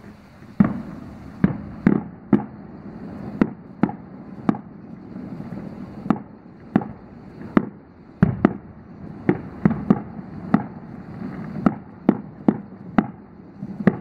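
Aerial fireworks shells bursting: about twenty sharp bangs at an uneven pace, some close together in pairs and threes.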